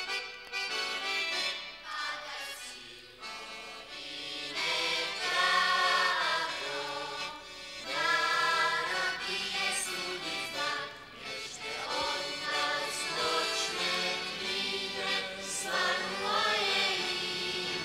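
Music with a choir singing, in phrases that break off and start again every few seconds.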